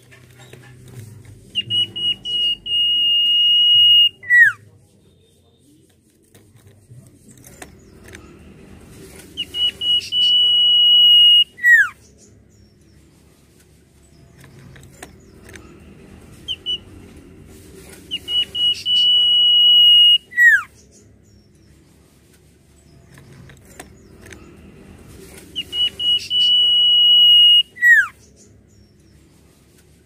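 Common iora whistling. Each phrase is a few short notes running into a long, steady, high whistle held about two seconds, then a sharp falling slur. The phrase comes four times, about every seven to eight seconds.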